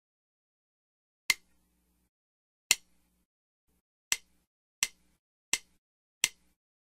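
Six sharp count-in clicks leading into a backing track. There are two slow clicks about a second and a half apart, then four at twice that pace, the classic 'one… two… one-two-three-four' lead-in.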